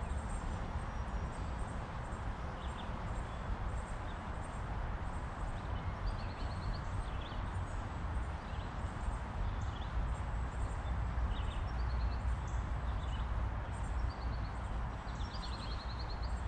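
Songbirds chirping and trilling in the background, short high calls and brief descending trills coming every second or two, over a steady low rumble.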